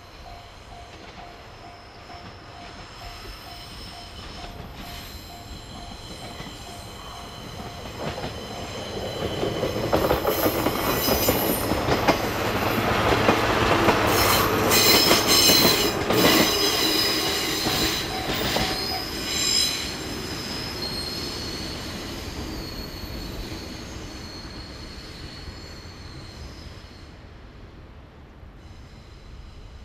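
JR DE15 diesel-hydraulic locomotive hauling a train of passenger coaches past at close range, with engine drone and high-pitched wheel squeal on the curve. It builds from faint to loudest about halfway through as the train goes by, then fades as it pulls away.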